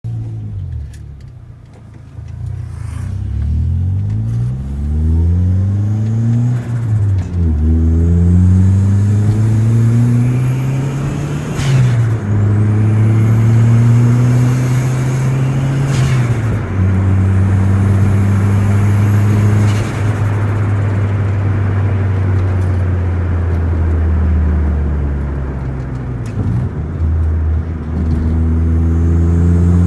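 Perodua Myvi 1.3's bolt-on turbocharged four-cylinder engine accelerating through the gears, the revs rising and dropping back at each shift, with a faint rising turbo whistle while it climbs. A short flutter as the throttle closes at the shifts about twelve and sixteen seconds in, then steadier cruising with the revs easing off and rising again near the end.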